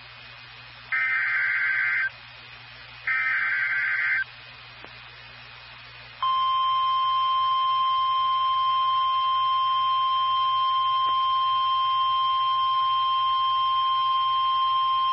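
NOAA Weather Radio Emergency Alert System signal: two buzzing SAME header data bursts, each about a second long with a second between them. About two seconds later the steady 1050 Hz warning alarm tone starts and holds unchanged for about nine seconds, announcing a warning.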